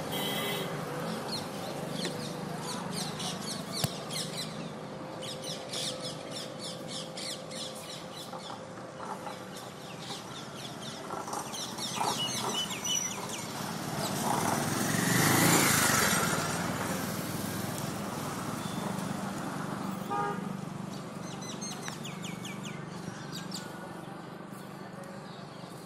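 Outdoor background: birds chirping in quick series, while a road vehicle passes, swelling and fading about halfway through.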